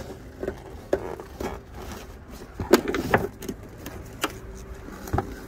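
Scattered plastic clicks and knocks as a removed 2012 Nissan Sentra tail light assembly is handled and its wiring connector unplugged, the loudest knocks coming about three seconds in.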